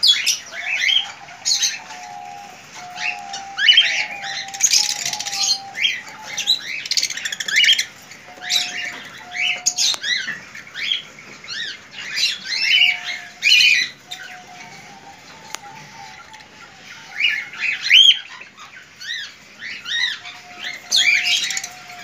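Cockatiels in an aviary chirping and squawking: a dense run of short, quick calls, with a lower steady whistle-like tone coming and going underneath.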